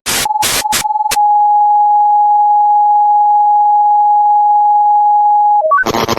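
Electronic signal audio: a few short bursts of static broken by a steady pure tone, then that single tone held steadily for about four and a half seconds. Near the end come a few quick stepped beeps, then loud static hiss.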